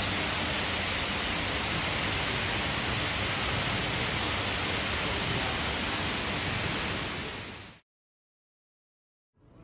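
Indoor fountain's water jets splashing into the pool: a steady rushing hiss that fades out near the end and gives way to a moment of silence.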